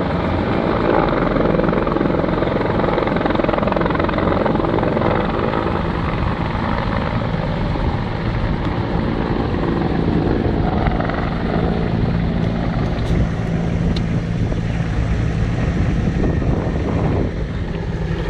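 Firefighting helicopter hovering over a water tank with a bucket slung beneath, then flying off; its rotor and engine run steadily throughout.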